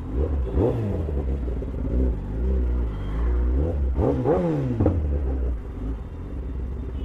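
Kawasaki ZX-10R's inline-four engine blipped several times while rolling slowly in traffic, the pitch rising and falling with each twist of the throttle, the biggest revs just after the start and about four seconds in, over a deep steady rumble.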